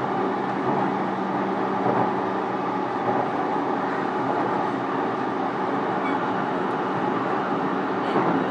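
JR East E233 series electric train running, heard from inside a motor car: a steady rumble of wheels on rail with faint steady hums from the traction equipment. A faint click or two comes near the end.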